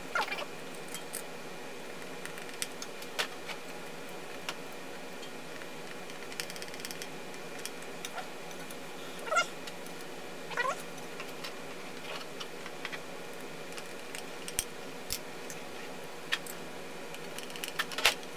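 Scattered light clicks and taps of small tools and a metal plate being handled on a table, over a steady background hum. About nine and ten and a half seconds in come two short meow-like cries that rise and fall in pitch.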